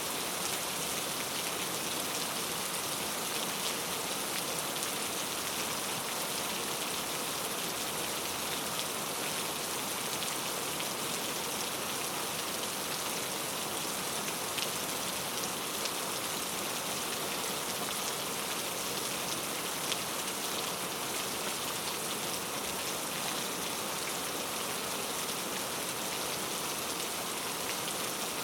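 Steady rain falling on forest foliage: an even hiss with scattered individual drops ticking through it.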